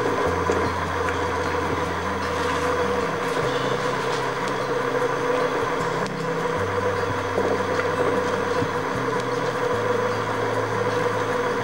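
A small milling machine's spindle motor running with a steady whine while a coated cutter feeds slowly down into steel plate.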